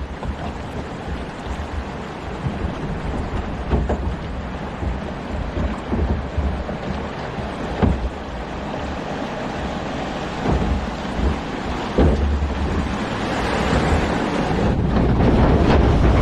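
Log flume boat riding along its water trough, with wind on the microphone and a few knocks of the log against the channel. Over the last few seconds a rushing of water and wind builds up loud as the log goes down the small first drop.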